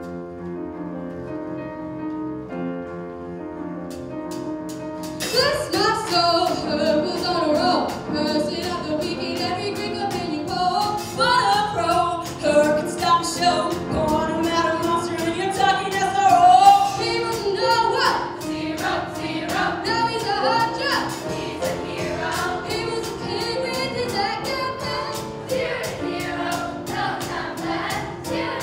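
Young mixed choir singing a pop song with a live band. Piano chords play alone at first; drums and cymbals come in about four seconds in and the choir starts singing a second later, backed by piano, guitar and drum kit.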